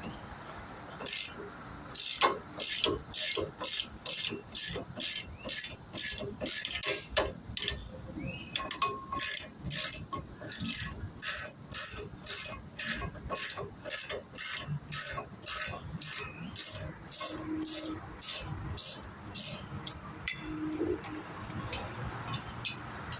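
Hand ratchet wrench clicking in a steady back-and-forth rhythm, about two strokes a second, as bolts are run out of a pickup's wheel hub assembly; it stops a few seconds before the end.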